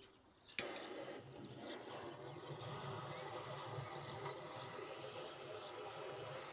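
Handheld gas torch burning with a steady rushing hiss as it lights kindling in a wood stove's firebox, starting with a click about half a second in.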